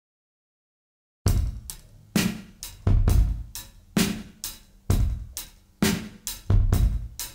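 Silence, then about a second in a drum beat of background music starts: kick, snare and hi-hat hits, with a strong beat roughly once a second.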